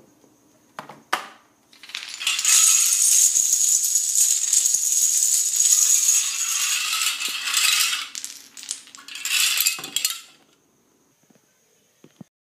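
A domino chain toppling on a ceramic tile floor: plastic dominoes and small wooden blocks clattering against each other and the tiles in a fast, dense run lasting about eight seconds, after two single knocks about a second in.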